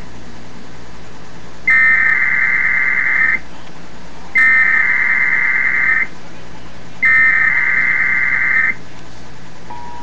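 Emergency Alert System SAME header: three bursts of digital data tones from a television, each about a second and a half long and a second apart. Near the end the steady two-tone EAS attention signal begins.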